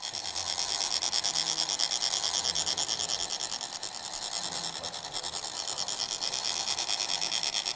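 Metal chak-pur, the ridged sand funnel of Tibetan sand-mandala making, rasped with a rod so that it vibrates and trickles coloured sand from its tip. The sound is a steady, even scraping that pulses several times a second.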